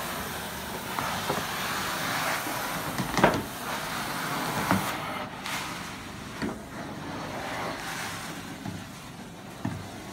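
Carpet-cleaning extraction wand pulling water and air out of the carpet as it is drawn across it, a steady rushing suction noise. A few knocks come through it, the loudest about three seconds in.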